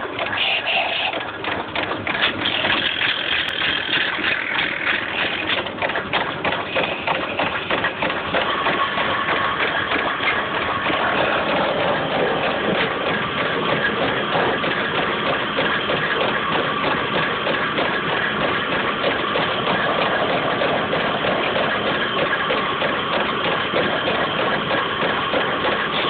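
Motor-driven wood lathe running steadily with hand tools scraping against the spinning wood. The scraping is rough and uneven for the first several seconds and turns into a steadier rubbing hum from about eight seconds in, as a blue colour stick is held against the turning piece.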